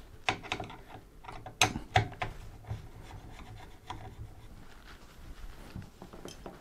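Screwdriver backing out the screws that hold a motherboard's plastic CPU-socket retention brackets: faint scraping and rubbing of metal on the screw heads, with a few sharp clicks in the first couple of seconds.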